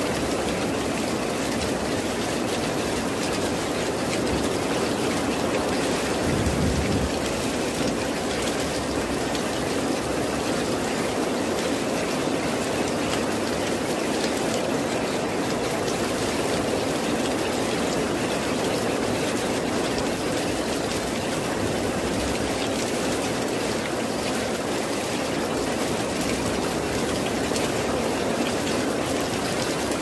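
Heavy rain falling steadily on leaves and foliage, a dense even hiss. A brief low rumble swells about six seconds in.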